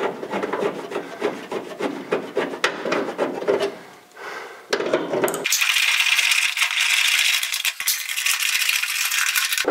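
Clicking and rattling of metal as hinge bolts are run in by hand while a car door is hung on its hinges. About five and a half seconds in, a steady hiss takes over.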